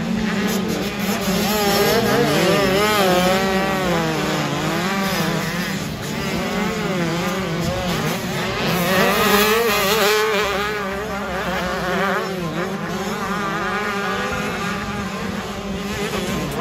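Several motocross bikes racing, their engines revving up and down constantly and overlapping one another over a steady lower drone.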